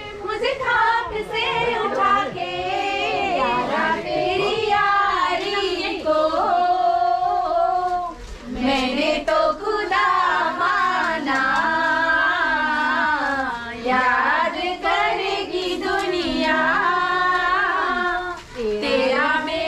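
Singing, with long held and gliding notes that carry on through the whole stretch with only short breaks for breath.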